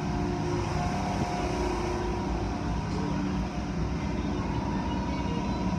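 Automatic car wash tunnel running steadily: water spraying and brushes working over a car, under a constant machinery hum.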